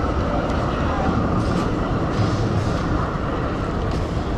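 Steady city street noise with a low rumble of traffic.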